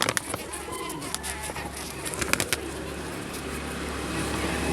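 Honeybees buzzing around an opened hive, with a few scattered clicks, and a low steady hum that sets in about a second in and grows louder toward the end.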